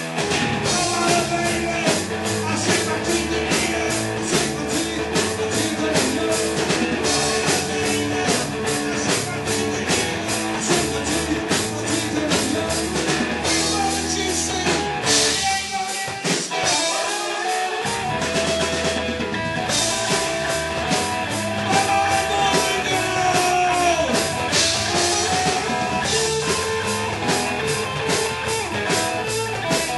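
Rock music from a full band, with drum kit and electric guitar keeping a steady beat; the bass drops out briefly about halfway through.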